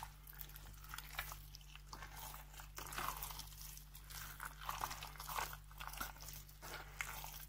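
A spoon stirring a thick, wet poppy-seed filling mixed with sugar syrup in a stainless steel bowl: faint, irregular wet stirring sounds.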